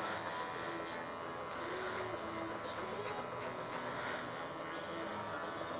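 Electric hair clippers with a guard attached running with a steady buzz while cutting the short hair on the sides of a head.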